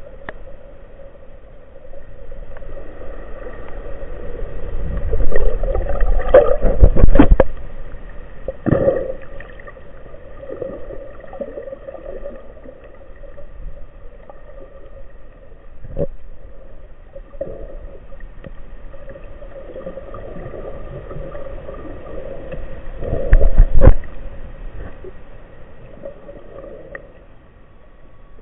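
Underwater sound picked up by a camera in a waterproof housing during a breath-hold dive: muffled water movement and rumbling. It swells into two strong rushing surges, about five to seven seconds in and again near twenty-three seconds, with a few sharp knocks.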